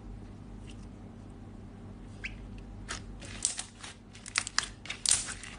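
Slime being squeezed and stretched by hand, giving sparse clicks and then bursts of sharp crackling pops, loudest a little past five seconds in, over a steady low hum.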